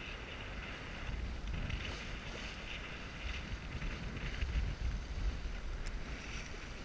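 Wind buffeting the microphone in gusts aboard a Lightning sailboat under sail, over an even hiss of water moving along the hull.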